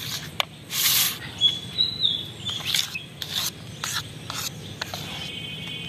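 Spoon scraping thick chocolate cake batter out of a bowl into a cake tin: a series of uneven scrapes, the loudest about a second in.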